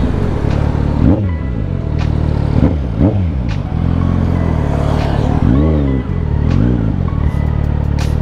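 Motorcycle engine revving up and back down several times in short blips, over background music.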